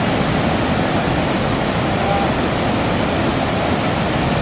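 Loud, steady rush of water pouring through a dam's sluice gates and churning into the river below.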